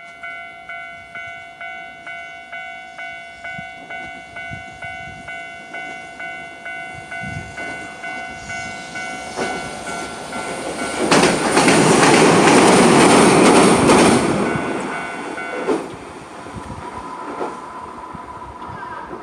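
Japanese level-crossing warning bell ringing at about two strokes a second, then a Hiroden tram passing over the crossing about halfway through, loudest for some four seconds. The bell stops soon after the tram has gone by.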